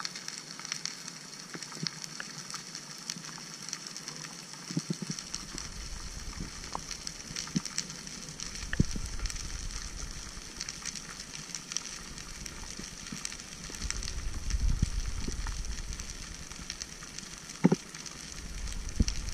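Underwater ambience over a rocky reef: a steady fine crackling and clicking, with low rumbling swells of moving water that come in about five seconds in and grow stronger near the middle and toward the end.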